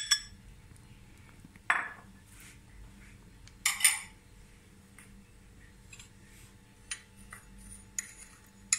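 Glass bowls and a metal spoon knocking and clinking together as chopped coriander and mint are tipped from a small glass bowl into a glass mixing bowl: three sharp knocks in the first four seconds, then a few faint clicks.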